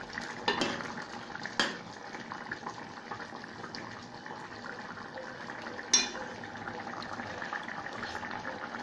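A pot of curry chicken neck with butter beans simmering on the stove, a steady low noise. A few sharp clinks of a utensil against the pot break in, the loudest about six seconds in.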